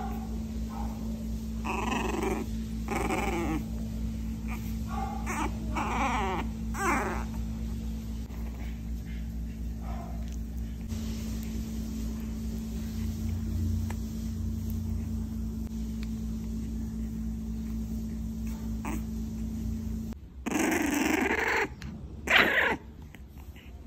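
French Bulldog puppy giving short, high yaps and whines while play-biting a hand, over a steady low hum. Near the end come two louder barks, the first one drawn out.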